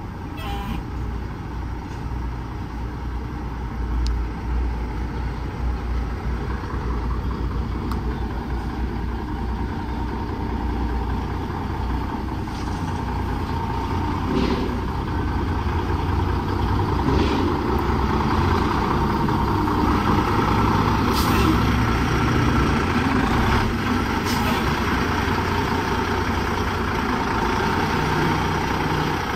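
Cummins N14 Celect Plus diesel engine of an International Paystar 5600 dump truck running as the truck is manoeuvred, getting gradually louder, with a few short sharp sounds.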